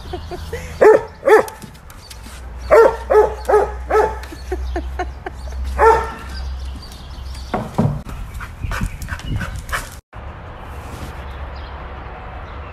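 A dog barking in short, sharp barks: a pair about a second in, a quick run of about five around three to four seconds in, and a few more by about eight seconds. After a break near ten seconds only a steady hiss remains.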